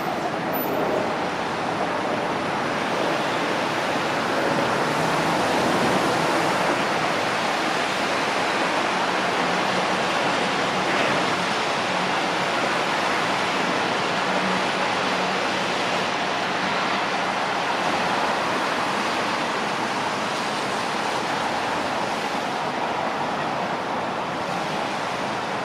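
Docklands Light Railway train running past on elevated track: a steady rushing rumble of wheels on rail that swells slightly about six seconds in and slowly eases as it moves away.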